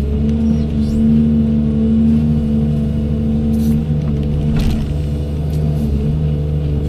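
Doosan 210W wheeled excavator's diesel engine running steadily under work. Its hum strengthens from about half a second to about four seconds in, and a sharp knock comes a little before five seconds.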